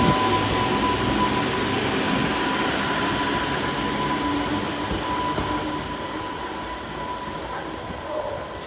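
London Northwestern Railway electric multiple unit pulling away from the platform, wheels rumbling on the track with a steady electric whine. The sound fades steadily as the train draws off into the distance.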